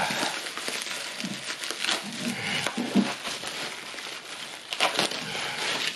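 Plastic bubble wrap crinkling and rustling as it is pulled open and unwrapped by hand, with small sharp crackles throughout; loudest about five seconds in.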